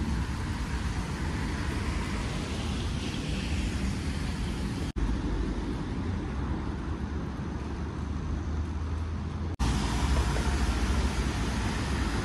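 City street ambience: a steady wash of traffic noise. It breaks off abruptly twice, each time for an instant, where the recording is cut.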